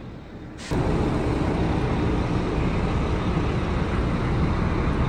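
Steady rumble of a moving city bus, engine and road noise, starting abruptly about a second in.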